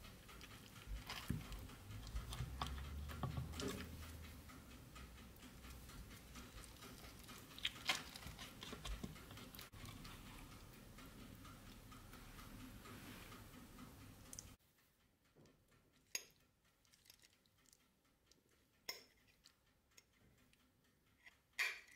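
Faint handling of a silicone spatula lifting a slice of casserole out of a metal tart pan, with scattered light clicks and low rumbling. About two-thirds through the background drops away, and three short clicks of a metal fork against a ceramic plate follow.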